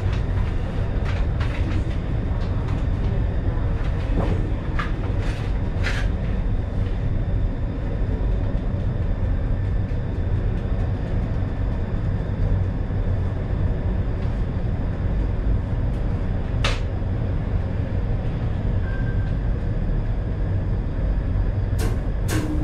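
Vintage electric train running slowly along an underground platform, heard from inside the driver's cab: a steady low rumble of motors and wheels on the rails, with a few short sharp clicks scattered through it.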